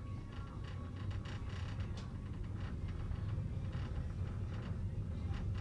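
Creaking and light clicking from the fittings of an Ammendorf sleeper coach's compartment as the coach rolls at low speed, over a low rumble that slowly grows louder.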